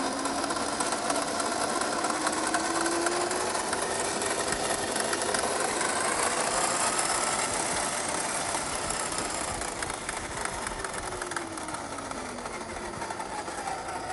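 1/10-scale RC crawler's electric motor and gearbox whining as it drives, the pitch rising over the first few seconds and falling again near the end as the throttle changes.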